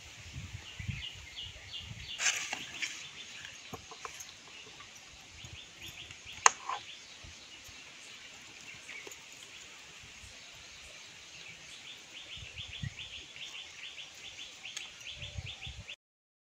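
Rural outdoor ambience: runs of rapid, evenly repeated high chirping come and go, over a low rumble of wind. There is one sharp click about six and a half seconds in, and the sound cuts off suddenly near the end.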